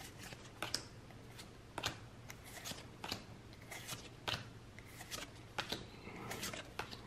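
Pokémon trading cards being handled and flipped through one at a time, giving a string of soft, irregular card flicks and slides.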